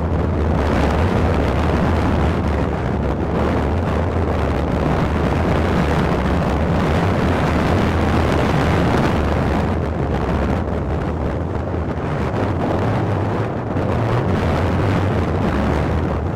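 Wind buffeting the microphone on a moving boat, a loud steady rumble over the low drone of the boat under way.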